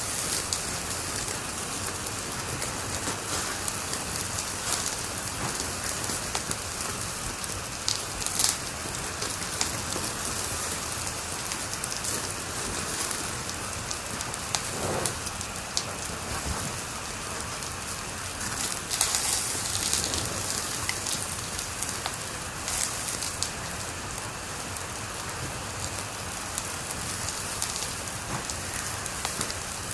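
Wood fire crackling steadily with a dense patter of small snaps, and a few louder pops around a third and two-thirds of the way through.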